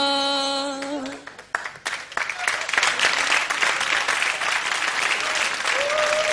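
A held sung note ends about a second in, and audience applause starts soon after and goes on to the end.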